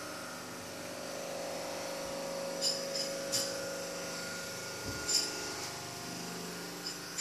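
A steady machine hum with a few steady tones, like a small electric motor running, broken by several short, light clicks.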